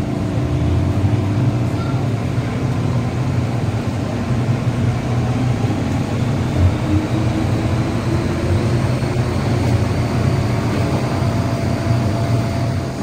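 Steady running noise inside a moving MTR M-train metro car: a constant low rumble from the wheels and running gear, with faint steady motor tones above it.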